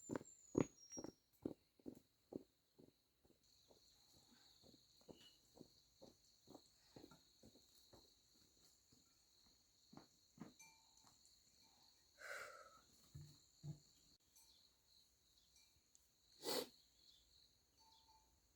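Faint outdoor quiet: a steady high insect drone, with soft footsteps at about two a second that fade away over the first several seconds, and a couple of brief rustles later on.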